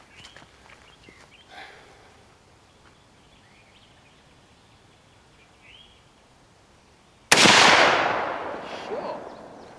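A single shot from a Winchester Model 94 lever-action rifle in .30-30, about seven seconds in: a sudden loud crack followed by a long echoing tail that dies away over about two seconds.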